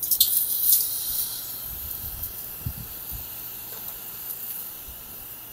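Whole squid sizzling on the wire rack of a small charcoal grill. The steady high hiss starts fairly loud and slowly fades.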